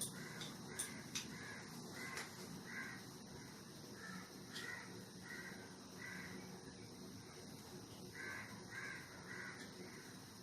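Crows cawing faintly, in runs of short repeated caws about every half second to second. A few sharp clicks come in the first couple of seconds.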